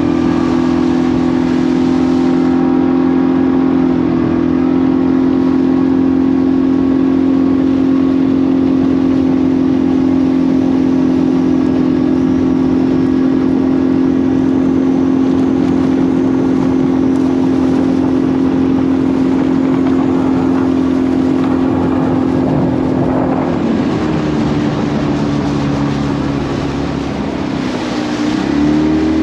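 Boat outboard motor running steadily at speed under a rushing hiss. Its pitch shifts briefly about four seconds in and changes again in the last few seconds before it cuts off.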